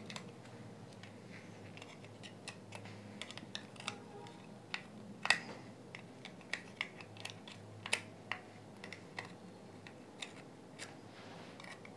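Light, irregular clicks and taps of metal tweezers picking at a headphone circuit board in its plastic ear cup, with a few louder clicks about five and eight seconds in, over a faint low hum.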